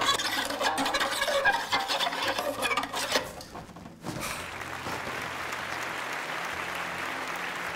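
A violin scraped and screeched by an unpractised player for about four seconds, then a steady wash of applause.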